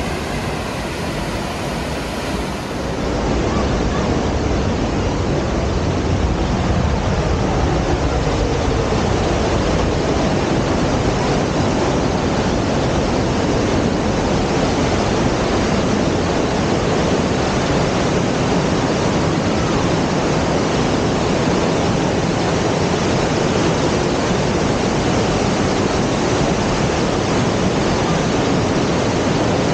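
Steady rushing roar of a waterfall's falling water, stepping up in level about three seconds in.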